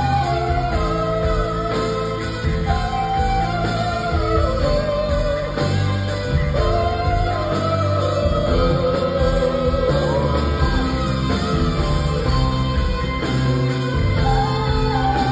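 Female singer singing long held notes that slide in pitch, over a live band with drums, keyboard and guitar playing a slow rock ballad.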